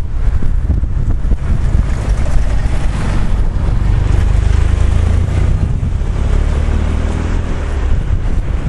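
Wind buffeting the microphone in a loud, uneven low rumble, over the steady rush of fast-flowing floodwater from a river above its alarm level.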